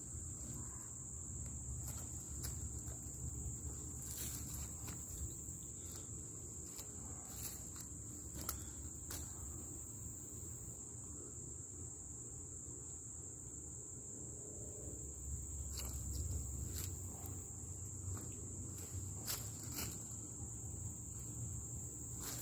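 Steady high-pitched chorus of insects trilling without a break, with scattered light clicks and crackles, such as footsteps on dry leaves.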